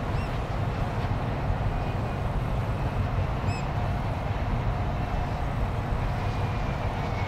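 Steady low outdoor rumble of harbour ambience with a faint steady hum, broken by two short, high bird chirps, one right at the start and one about three and a half seconds in.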